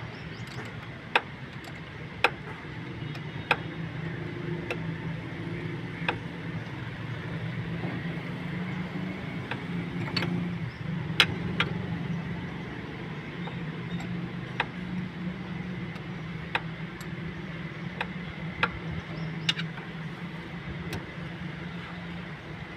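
Suzuki Cultus engine idling steadily, with a sharp tick about every second or so.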